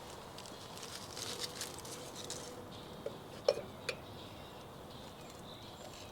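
Faint outdoor ambience with three soft clicks about three to four seconds in, like light handling of small metal parts.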